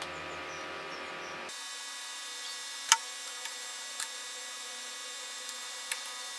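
A few short clicks and taps as bamboo skewers and a plastic tube are handled and tied together, with one sharp click about three seconds in, over a steady background hum.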